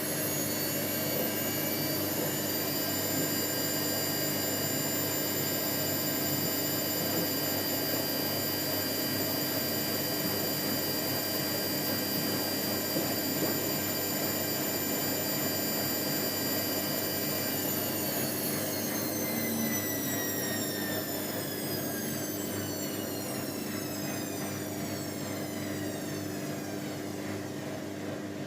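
Whirlpool AWOE 91402 front-loading washing machine spinning at 600 rpm: a steady high motor whine over a low hum and drum rumble. About two-thirds of the way through, the whine starts falling steadily in pitch as the motor slows.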